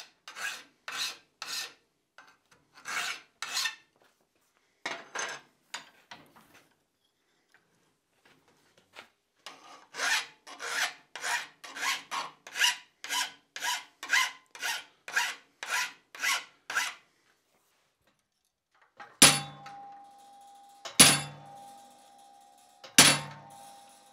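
Hand file cutting a bevel along the edge of a steel plate clamped in a vise: a few scattered strokes, then a steady run of about two strokes a second. Near the end, three hammer blows on a chisel struck cold into the steel, each ringing.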